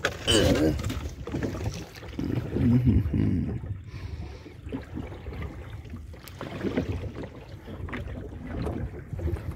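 A small boat moving on water, with a low rumble of water and boat noise, and a few short stretches of muffled talking.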